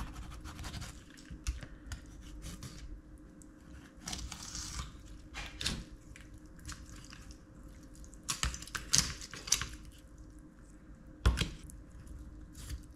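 Filleting knife cutting along a sea perch's frame and through its tough skin, with short scrapes and crackles of the blade and taps on a bamboo cutting board; a sharper knock comes near the end.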